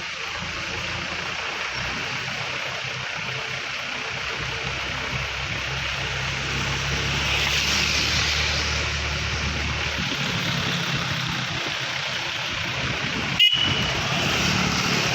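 Road vehicles running past with a steady engine hum over a constant rushing noise, and one short horn toot about 13 seconds in.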